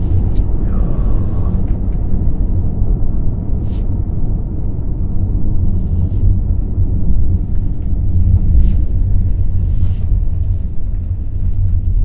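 Car interior road noise while driving: a steady low rumble of engine and tyres heard inside the cabin, with a few brief knocks.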